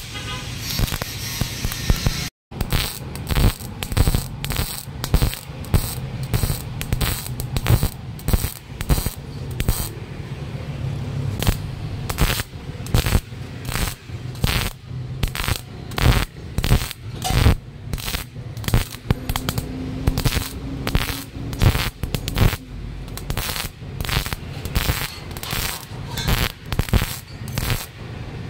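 MIG (wire-feed) welding arc on steel square tubing, crackling and spitting in short, irregular bursts about one or two a second as the torch lays weld on the joints.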